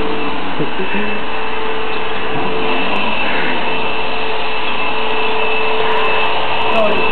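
Electric sweeper (vacuum cleaner) running steadily: a loud, even rushing noise with a constant whine from the motor.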